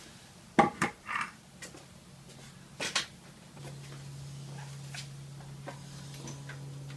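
A few sharp clanks and knocks as metal motorcycle parts are handled and set down, several in the first second or so and one more about three seconds in. A faint low steady hum comes in about halfway through.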